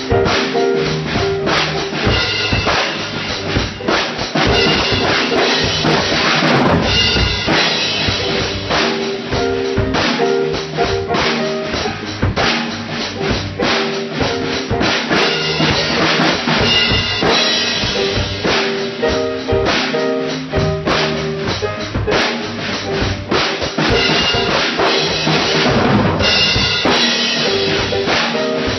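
Band music: a drum kit playing a steady beat under keyboard.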